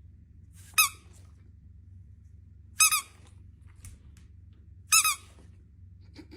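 Three short, high-pitched squeaks, about two seconds apart, over a low steady hum.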